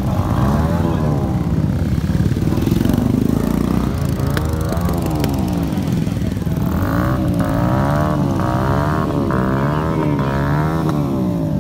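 Motorcycle engine being revved over and over, its pitch rising and falling about once a second, over the rumble of other engines and crowd chatter.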